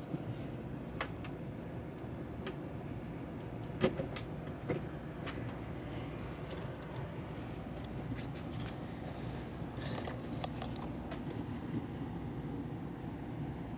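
A steady low rumble and hiss with scattered light clicks and taps, the sharpest about four seconds in and a cluster of them near the end.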